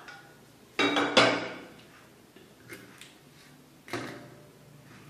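Metal kitchenware clanking: two sharp clanks about a second in with a brief ring after them, a few light taps, and another knock near the end.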